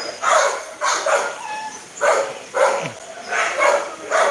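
Dogs barking over and over, about two barks a second.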